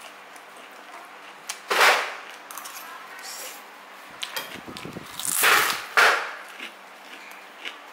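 Eating sounds close to the microphone: two loud noisy bursts, about two and five and a half seconds in, with a sharp click right after the second and scattered small clicks between.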